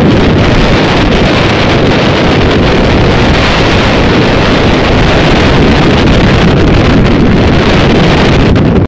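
Loud, steady wind buffeting on the microphone of a camera riding in a moving vehicle, with a low vehicle rumble underneath.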